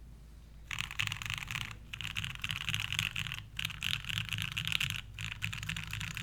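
Mechanical keyboard with lubed Gateron Ink linear switches, an aluminium plate and thick PBT keycaps, typed on very fast. The keystrokes come in four long runs of dense clacking with brief pauses between them, starting about a second in.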